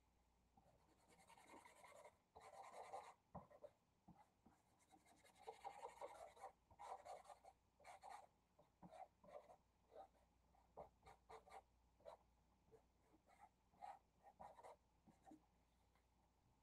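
Faint scratching of a large black marker on paper as it fills in a dark area: two longer runs of back-and-forth scribbling in the first half, then many short, separate strokes.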